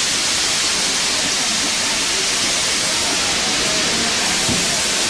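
Steam locomotive giving off a steady hiss of escaping steam.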